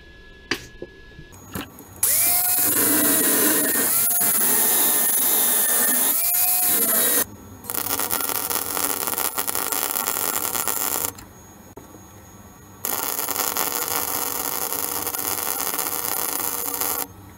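Arc welding on stainless steel plate: three runs of steady, crackling hiss with short breaks between them. The first run lasts about five seconds; the next two are a little shorter.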